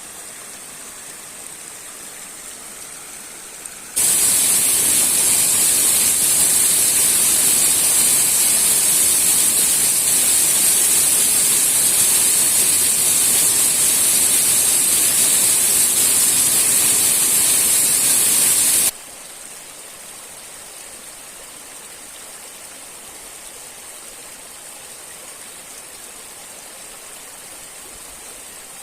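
Steady rush of river water. About four seconds in, a much louder, hissier rush of water, like a waterfall heard close up, cuts in abruptly. It stops just as abruptly some fifteen seconds later, leaving the softer river sound.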